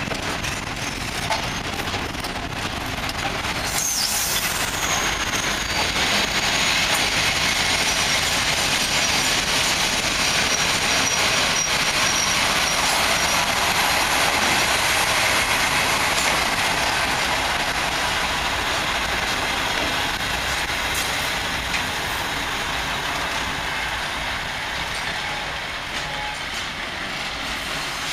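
Freight train of cement hopper wagons rolling past close by: steady noise of wheels on rail, with a thin high wheel squeal a few seconds in. It eases a little near the end as the last wagon goes by.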